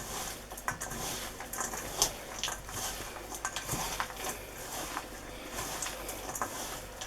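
Thick, sticky Christmas pudding mixture of dried fruit, breadcrumbs, mincemeat and treacle being mixed in a bowl: irregular squelches, scrapes and light knocks against the bowl, with one sharper knock about two seconds in.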